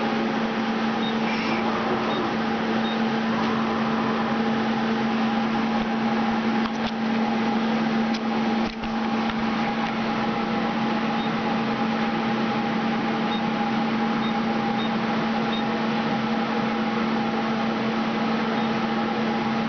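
Ajax CNC lathe running with a steady electric machine hum and a constant low drone, with one brief click about nine seconds in.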